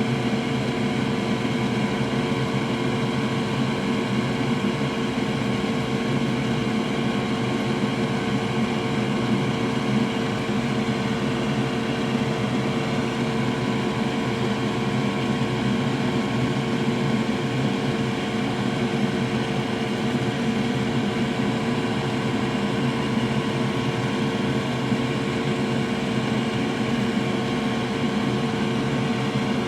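Steady whir of a small electric blower or fan motor, running at an even pitch with a constant hum and no change in speed.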